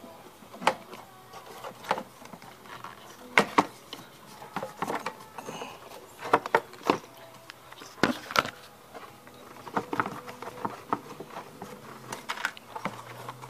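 Irregular clicks and knocks of a plastic air filter housing and intake duct being handled and pressed into place by hand, a dozen or so sharp knocks at uneven intervals.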